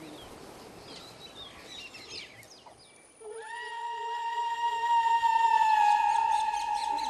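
Faint birds chirping over an outdoor background. About three seconds in, a single long pitched note comes in and holds for about four seconds, dipping slightly in pitch near the end.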